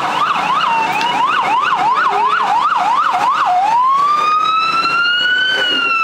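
Emergency vehicle siren: a fast yelp, about three up-and-down sweeps a second, that switches about three and a half seconds in to a slow wail, rising and then beginning to fall near the end.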